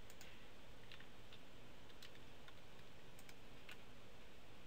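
Faint, irregular small clicks, about nine of them, over a steady low hiss of room tone.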